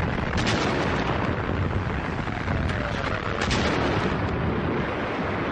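Artillery fire and shell explosions over a continuous rumbling din of battle, with sharp gun reports about half a second in and again about three and a half seconds in.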